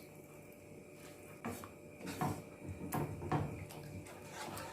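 Several light, irregular knocks and clatters of a utensil against a cooking pan.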